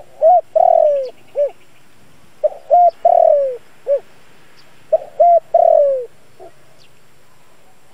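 Spotted dove cooing its song three times, each phrase about two and a half seconds apart: a short note, an arched note, a long note falling in pitch, then a short closing note.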